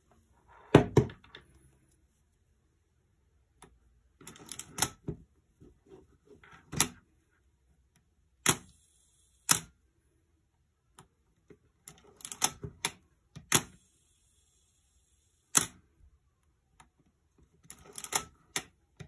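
Nikon F3 35mm SLR body being worked by hand: short runs of small ratcheting clicks from the film advance lever and sharp single clacks of the shutter firing. This happens several times, with pauses of a second or more between.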